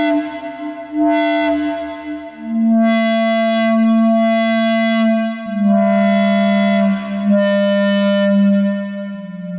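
Behringer Odyssey analog synthesizer playing a slow line of held, brassy notes that steps down in pitch a few times. The filter sweeps open at the start of each note, so each note starts dull and quickly turns bright.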